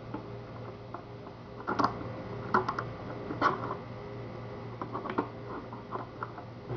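Small metal clicks and scrapes of a lock-cylinder shield plug being pushed and fitted into its housing on the door lock, a dozen or so sharp clicks spread unevenly, loudest about two and three and a half seconds in, over a steady low hum.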